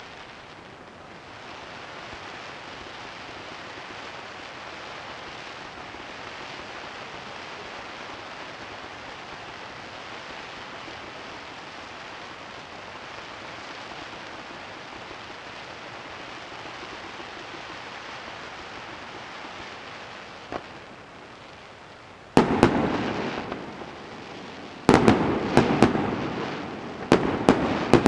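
A steady hissing noise for about twenty seconds, then fireworks shells bursting with sharp, loud bangs that ring out and fade, one a little over twenty seconds in and several more in quick succession near the end.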